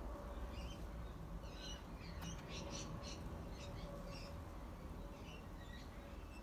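Small birds chirping: a scattered series of short, high chirps, thickest in the first half, over a steady low background rumble.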